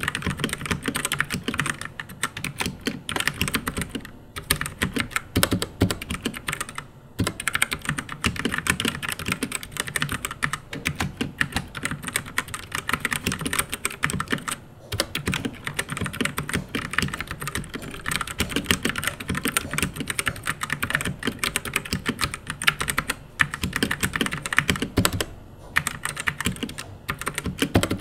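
Rexus Daxa M71 Classic mechanical keyboard with Outemu Brown switches being typed on fast and without stopping, a dense run of key clicks broken by a few short pauses.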